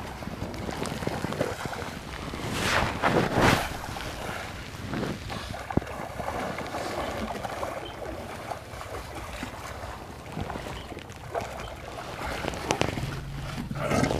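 Wind buffeting the microphone as a steady rumble, with two stronger gusts about three seconds in.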